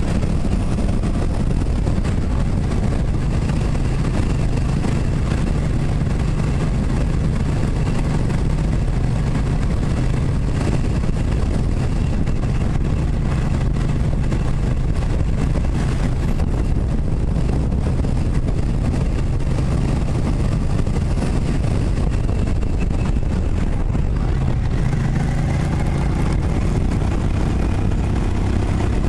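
Cruiser motorcycle engine running steadily at road speed, heard from a camera mounted on the bike, with wind rush over it. Its note lifts a little near the end.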